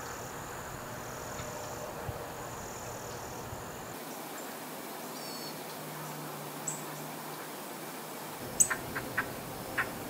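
Outdoor woodland ambience: a steady hiss with a high, steady insect buzz through the first few seconds, a few faint bird chirps in the middle, and a short series of sharp ticks near the end, the first the loudest.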